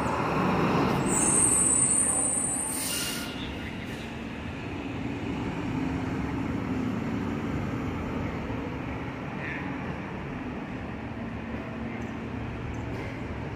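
New York City subway train moving on the track with a rumble, its wheels giving a high-pitched squeal about a second in. A short hiss follows, then a steady rumble and hum.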